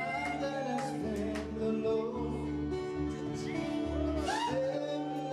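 A song laid over the picture: a singing voice over guitar and a bass line that changes note every second or so.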